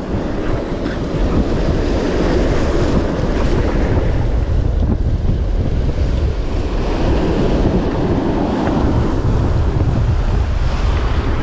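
Steady wind buffeting the microphone over the rush of surf breaking on the reef rocks.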